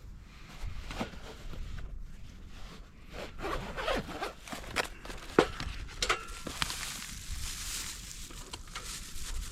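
A zipper being pulled in short scratchy runs, with a longer pull about two thirds of the way in, amid rustling and a few sharp clicks of gear being handled.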